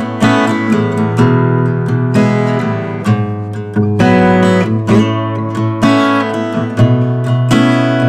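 GWG Guitars Black MAHO 00, a small-bodied 00-size mahogany steel-string acoustic guitar, played solo with the fingers: chords and notes plucked in quick succession and ringing out.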